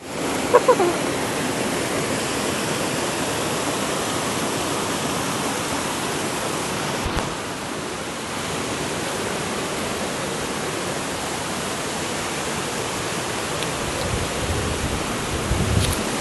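Waterfall rushing steadily, an even wash of falling water with no let-up. A few low thumps come near the end.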